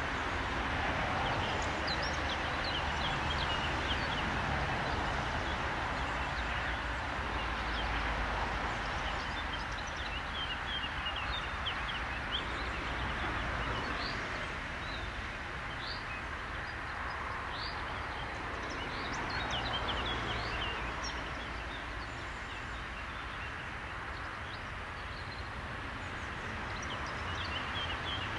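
Small birds chirping and singing in short calls, over a steady outdoor hiss and low rumble that swells gently twice.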